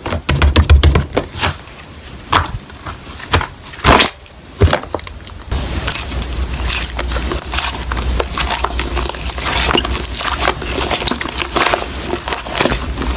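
Slime being worked by hand: sharp clicks and pops at first, then from about five seconds in a dense, continuous crackling and squishing.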